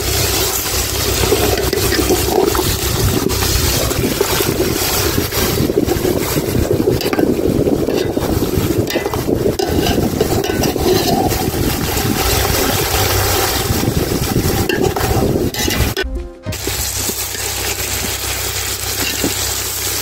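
Hot oil sizzling and crackling steadily around a whole masala-coated chicken shallow-frying in a metal pot, with a metal slotted spoon working against the pot as the bird is turned. The sizzle breaks off for a moment about three-quarters of the way through, then carries on a little quieter.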